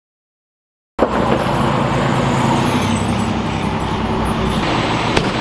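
Silent for about the first second, then fire engines' diesel engines idling steadily with a low hum.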